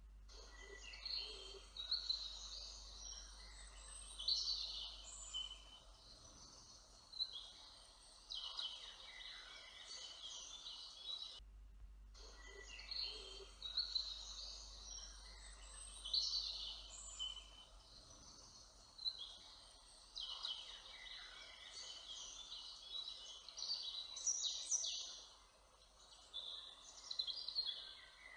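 Several small songbirds singing in woodland, with overlapping chirps and trills coming every second or two and a short break in the sound about a third of the way in.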